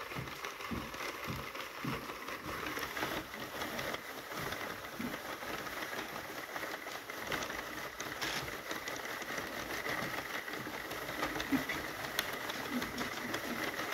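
Sentro hand-cranked circular knitting machine being turned, its plastic needles and crank clicking and clattering quietly and steadily as it knits.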